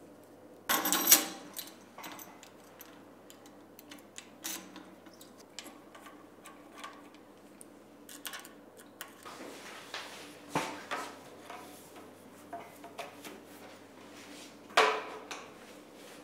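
Metal lab equipment being handled: cable connectors and fittings clicking, clinking and rattling in irregular knocks. There is a loud clatter about a second in and another near the end.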